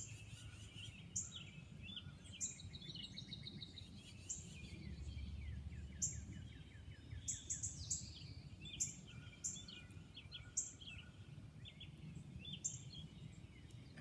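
Songbirds chirping and trilling in the background over a low steady outdoor rumble, with scattered short scratchy ticks from buckskin lacing being tucked and pulled by hand.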